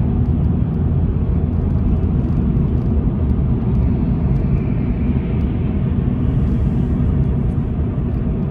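Steady low rumble of road and engine noise inside a moving car's cabin while driving along a highway.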